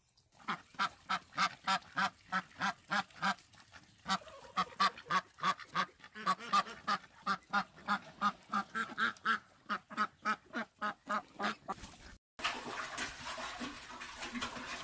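Domestic duck quacking rapidly and repeatedly, about three quacks a second. The quacking stops abruptly about twelve seconds in and gives way to a steady hissing noise.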